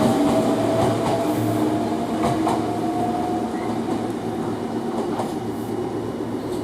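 Meitetsu 3500-series electric train pulling out, its VVVF inverter motor sound a held tone that rises slightly, then fades as the train draws away. A few sharp clicks of wheels crossing rail joints run through it.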